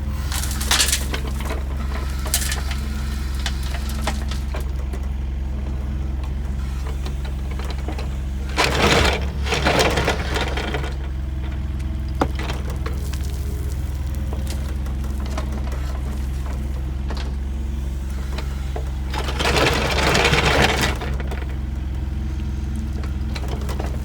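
Heavy-equipment diesel engine running steadily, with a few sharp clicks and two louder noisy bursts of about two seconds each, the first near the middle and the second near the end.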